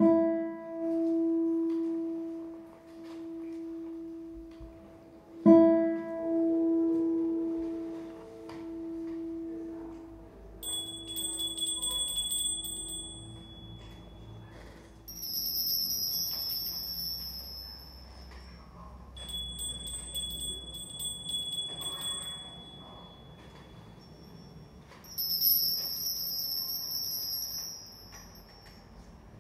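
A bell-like tone struck twice, about five seconds apart, each ringing on and slowly fading. Then small high chimes tinkle and shimmer in two spells.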